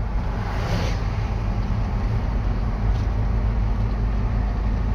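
Steady engine and road noise inside the cab of a moving RV, mostly a low rumble.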